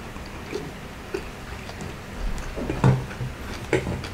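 Close-up eating sounds: fingers working sauce-soaked rice and lifting it to the mouth, with small wet clicks and smacks. A louder knock with a low thud comes near three seconds in.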